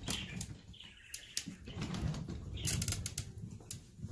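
Soft rustling and handling noises with scattered small clicks, like a phone being moved and bedding shifting.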